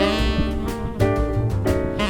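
Background jazz music: piano and drums with a steady swing beat, a saxophone line just around it.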